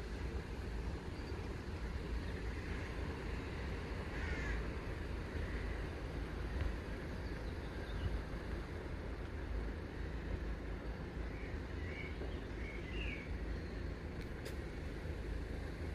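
Steady low outdoor rumble, like wind on the microphone, with a few short bird calls, one about four seconds in and a cluster around twelve to thirteen seconds.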